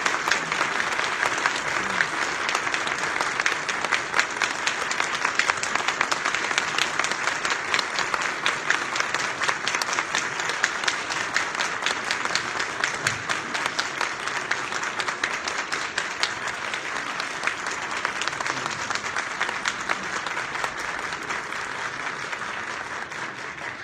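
An audience applauding: a long, steady round of clapping that eases slightly toward the end.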